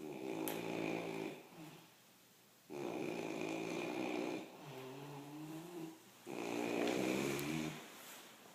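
A man snoring in his sleep: three loud, rasping snores about three seconds apart, with a softer breath between the second and third.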